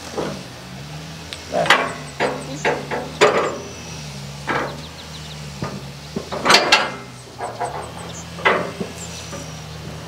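Hollow wooden knocks and thumps as a black cherry log is pushed and rolled against the steel bed of a portable bandsaw mill, several in a row with the loudest about six and a half seconds in. A small engine idles steadily underneath.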